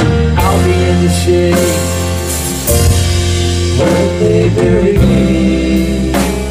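Live rock band playing: electric guitars, bass, drum kit and keyboards, with a male lead vocal singing over them. Drum strikes come roughly once a second under sustained guitar and vocal notes.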